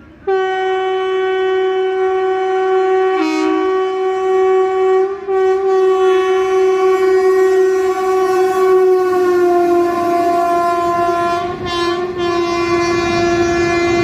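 Electric locomotive's horn on a fast freight train, one long steady blast that starts suddenly and drops in pitch about two-thirds of the way through as the locomotive passes. Near the end the rumble of the passing wagons rises under the horn.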